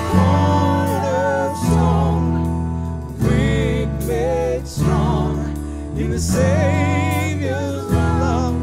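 Worship music: sustained chords that change about every second and a half, with a wavering melody line over them.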